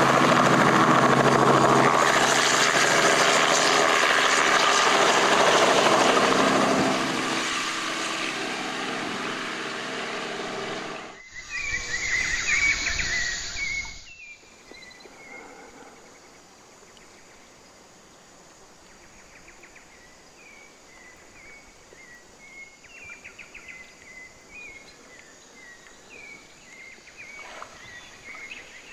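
Helicopter running loud, its rotor and engine steady and then fading from about seven seconds in. About eleven seconds in it cuts to birds calling, and from about fourteen seconds in there is quiet jungle riverside ambience with repeated short bird chirps.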